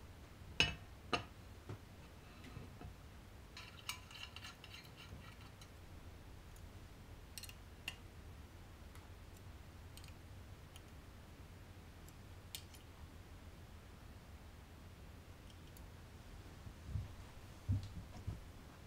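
Handling noise of a metal router insert plate being fitted to a plunge router's base: scattered sharp clicks, a brief metallic rattle about four seconds in, and a few soft thumps near the end as the router is set into the table. A low steady hum runs underneath.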